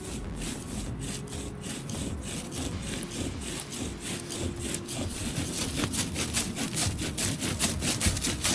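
Bow drill fire-making: a wooden spindle spun back and forth in a hearth board by a shoelace bow, a rhythmic rubbing of wood on wood that speeds up and gets louder in the second half as he pushes for an ember.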